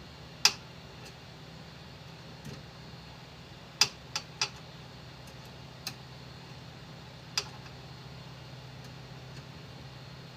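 Several sharp, short clicks and taps, one about half a second in, a quick cluster of three near the middle, and a last one past seven seconds, over a steady low hum.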